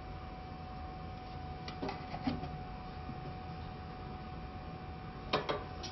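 Sharp plastic clicks of the pinch-roller release lever on a Primera FX1200 label finisher being worked by hand: a few about two seconds in and two more near the end, over a steady hum.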